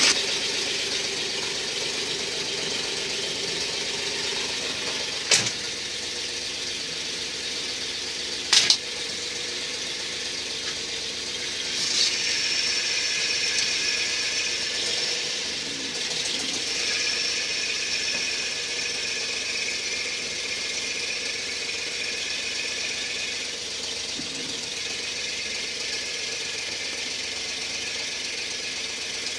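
1970 Boss 302 V8 idling steadily, heard from inside the cab. Two sharp clicks come about five and eight and a half seconds in, and a high whine comes and goes from about twelve seconds in.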